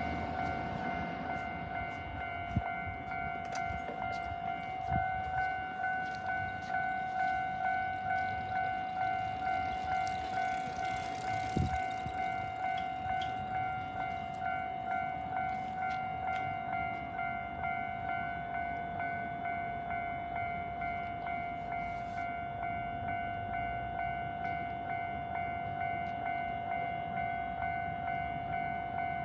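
Japanese railway level-crossing warning bell ringing: one steady electronic tone pulsing in a regular repeating rhythm throughout. Under it, the rumble and clatter of a train on the rails fades away over the first dozen seconds.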